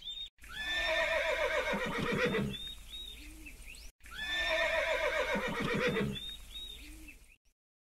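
A horse whinnying twice, the same call played twice. Each whinny is about three and a half seconds long: it starts high, falls in pitch and ends in a rapid fluttering.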